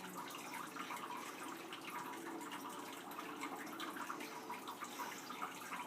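Faint, steady background noise with small scattered drip-like ticks; no distinct event stands out.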